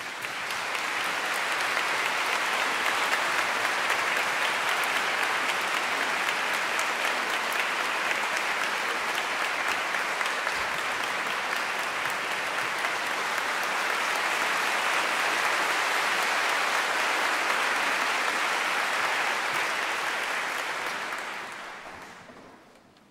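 Audience applauding in a concert hall, a dense steady clapping that swells up at once and dies away near the end.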